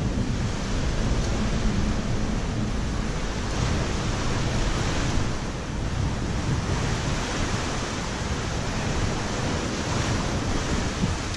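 Steady rushing wind on the microphone over the wash of water moving around a bridge footing.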